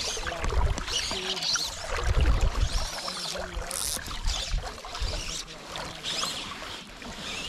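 River water rippling and splashing, with uneven low gusts of wind buffeting the microphone.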